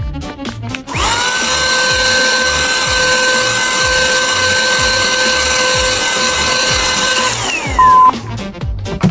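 A small electric motor whines steadily for about six seconds, winds down, and a short electronic beep follows, over background music.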